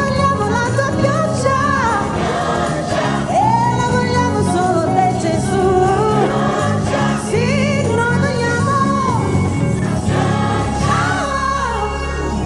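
Gospel choir singing with solo voices on microphones, the lead melody sliding and wavering above the choir, over a steady low instrumental backing.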